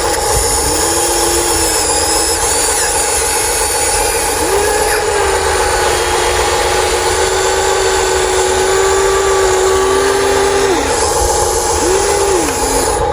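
Electric gear motors of a Huina 1593 remote-control excavator whining as the arm and bucket move, each whine rising in pitch as it starts and dropping as it stops, one held for several seconds in the middle. A steady hum runs underneath throughout.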